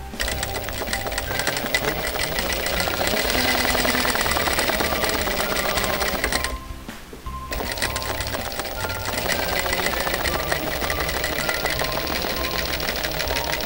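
Sewing machine running fast, the needle stitching rapidly for free-motion quilting; it stops for about a second just past halfway, then starts again and runs on.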